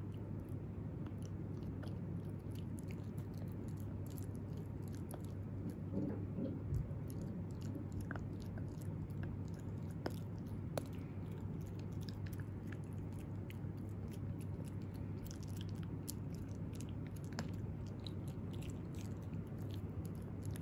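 Italian greyhound puppy gnawing and chewing a dental chew stick: a steady run of small clicks and crunches, busiest about six seconds in, over a low steady hum.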